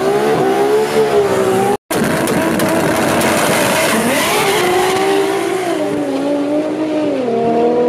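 Turbocharged Nissan RB30 straight-six in a drag-racing VW Scirocco revving on the start line, then launching hard with a loud rush of noise. Its note then drops in pitch in several steps as it pulls away down the strip.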